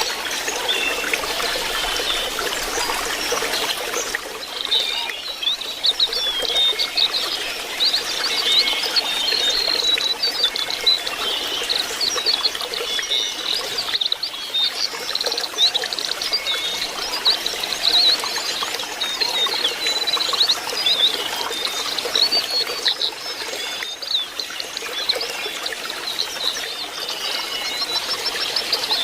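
Lesser shortwing (jongkangan) singing a continuous, jumbled run of high twittering notes over a steady trickle of running water.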